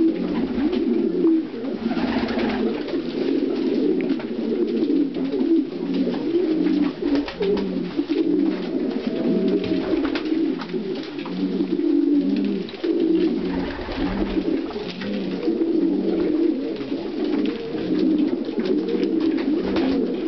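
A loft full of domestic pigeons cooing continuously, many low calls overlapping, with a few faint ticks among them.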